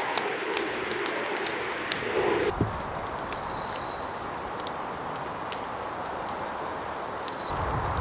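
Tarp fabric rustling and clicking as it is handled, cutting off about two and a half seconds in. Quiet woodland ambience follows, in which a songbird sings two short, high whistled phrases that step downward in pitch, a few seconds apart.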